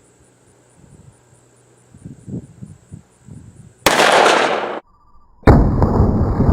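A single .357 Magnum shot from a Taurus M66 revolver about four seconds in, loud and cut off abruptly after under a second. About a second and a half later a loud, steady, low rumbling noise begins and carries on.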